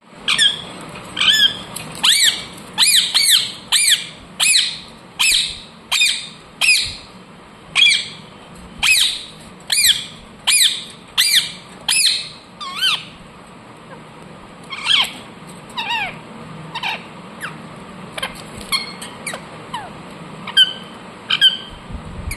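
Pet parrot squawking: a rapid series of short, shrill calls, thinning after about 13 seconds into sparser, quieter calls, with two sharp ones near the end.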